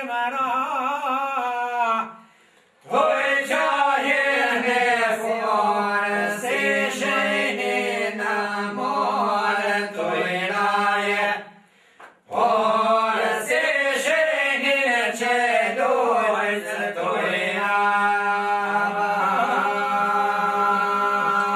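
Men singing a northern Albanian two-part polyphonic (dyzanshe) song: a lead voice winds and bends above a steady held low note. The singing breaks off briefly twice, about two seconds in and about eleven seconds in, between phrases.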